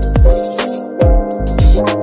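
Background music with an electronic beat: deep bass-drum hits that drop in pitch, cymbal strokes and sustained keyboard chords.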